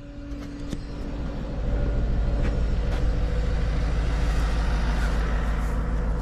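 Timber truck's engine and loader-crane hydraulics working as the crane's elevating operator cab rises: a steady low drone with a faint whine, growing louder a second or two in and then holding.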